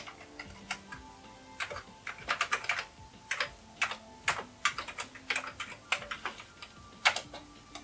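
Typing on a computer keyboard: irregular key clicks in short runs, with a pause between runs.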